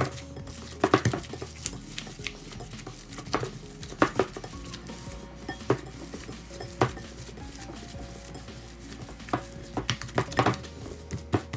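Hands kneading raw pork and beef mince in a ceramic mixing bowl, with about a dozen irregular knocks and clicks against the bowl.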